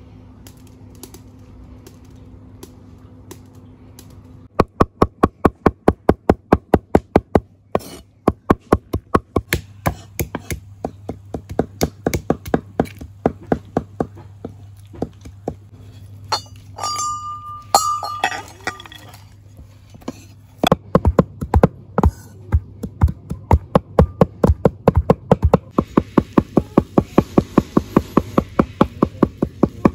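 A cleaver chopping fresh herbs on a wooden board in fast, steady strokes of about four to five a second. The chopping starts about four seconds in, after a low hum, and slows to scattered knocks in the middle, where there is a brief high clink.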